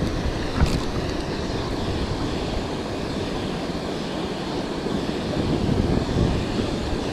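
Steady rush of fast-flowing, foaming river water mixed with wind buffeting the microphone, with one short click about half a second in.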